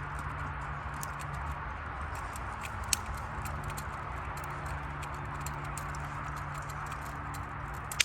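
Campfire crackling with scattered small pops over a steady background hiss, one sharper pop about three seconds in, and a low steady hum underneath.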